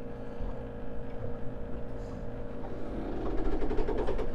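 Steady machinery hum in a boat's engine room, with a constant whine over a low rumble. It grows louder and rattlier about three seconds in.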